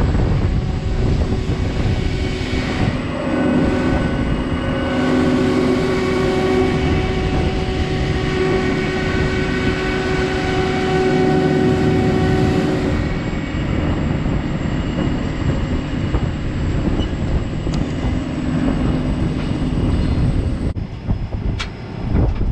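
Steady engine drone and road noise from inside the cab of the vehicle towing a combine head cart on the road. A steady pitched hum rises out of the drone for several seconds in the middle, then fades back.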